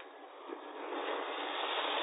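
Ground firework fountain hissing as it sprays sparks. The hiss starts about half a second in and grows steadily louder.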